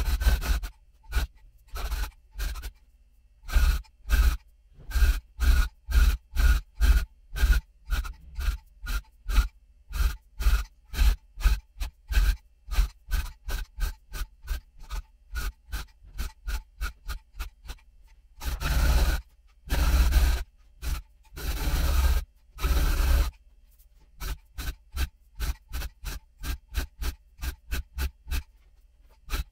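Electric tufting gun punching yarn into stretched tufting cloth, running in many short bursts about two a second, with a few longer runs about two-thirds of the way through.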